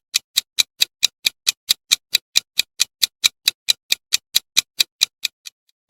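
Clock-tick countdown sound effect: sharp, even ticks at about four a second, stopping shortly before the end.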